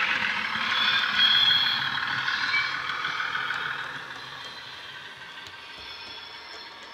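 Model Bachmann Class 150 diesel multiple unit running by, its DCC sound decoder playing an SWD Class 150 diesel engine sound file through small speakers, with wheel and motor noise on the track. The sound fades as the train moves away, with a brief high whistling tone about a second in.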